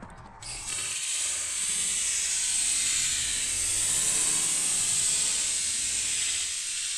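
Model rocket's C motor igniting about half a second in with a sudden, loud hiss that holds steady as the rocket climbs.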